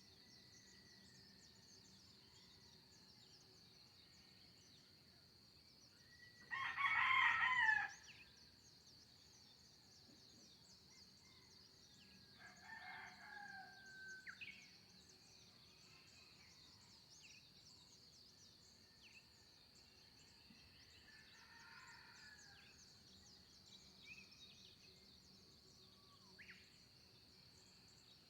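A rooster crowing once loudly about seven seconds in, then a fainter crow a few seconds later, with scattered short bird chirps and a steady high-pitched whine in the background.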